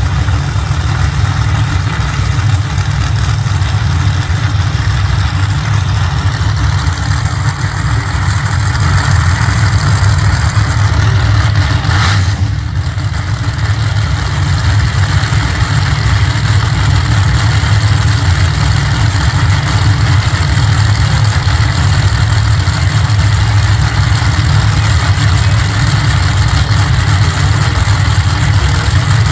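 No-prep drag-race car engines idling at the starting line: a loud, steady, deep rumble with no launch. A brief sharp noise cuts in about twelve seconds in.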